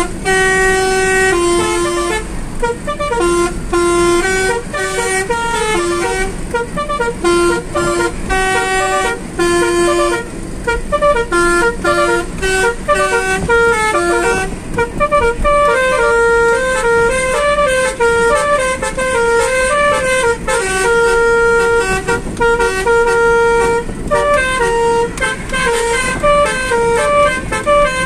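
A basuri musical air horn playing a melody note by note, its notes worked from a melodica keyboard, heard from inside the car. Short notes follow one another quickly, with a few longer held notes in the second half.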